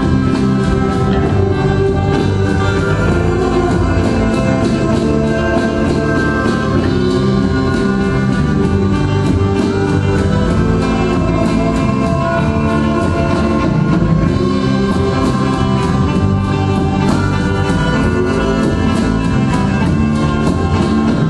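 Band music performed live: guitar over a steady drum beat, playing continuously at an even, loud level.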